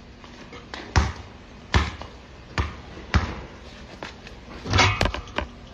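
Basketball bouncing on a hard court: single bounces under a second apart, then a quicker cluster of hits near the end.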